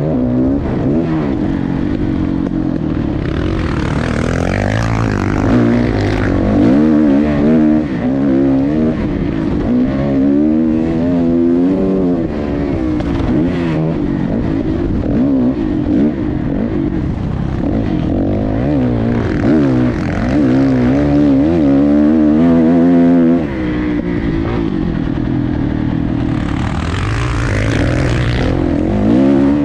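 Dirt bike engine heard from the rider's own onboard camera, revving up and falling off again and again as the bike accelerates, shifts and brakes through a motocross lap. A hissing rush swells about four seconds in and again near the end.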